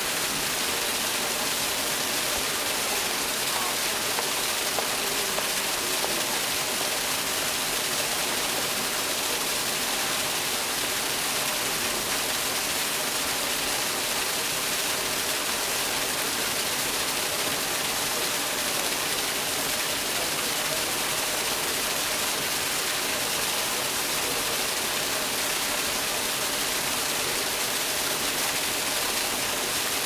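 Steady, even rush of a waterfall's falling water.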